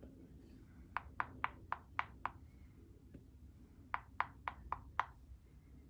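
Back end of a paintbrush tapping paint dots onto a door hanger: two quick runs of light taps, six and then five, about four a second.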